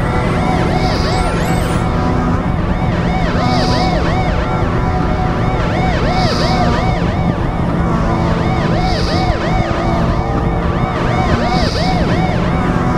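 Music with a siren-like wailing sound that rises and falls several times a second, over a steady low bed and an accent that recurs about every second and a quarter.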